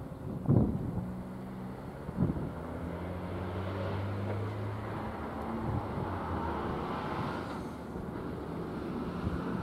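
Distant engine hum with a steady low drone that swells and fades, with two gusts of wind buffeting the microphone, about half a second and two seconds in.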